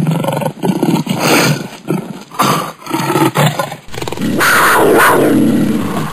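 A big cat's growls and snarls in short bursts, then one long roar of about two seconds that cuts off suddenly near the end.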